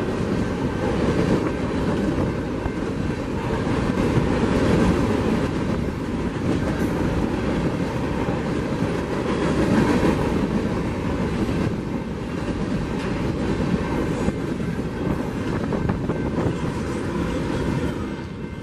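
Freight cars, BNSF covered hoppers, rolling past: a steady noise of steel wheels on the rails.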